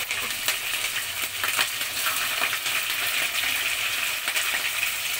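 Sliced onions and green chillies frying in hot oil with a tempering of garlic and curry leaves: a steady, dense sizzle with fine crackles.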